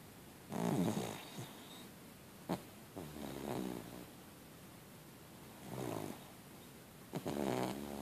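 A sleeping puggle snoring: four rasping snores about two to three seconds apart, with one short sharp click about two and a half seconds in.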